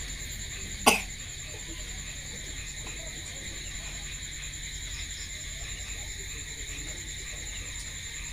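One short, loud cough about a second in, over a steady high-pitched drone in the background.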